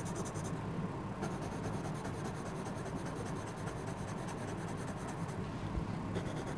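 Colored pencil scratching steadily on drawing-pad paper in light, circular colouring strokes. A steady low hum of an electric fan runs underneath.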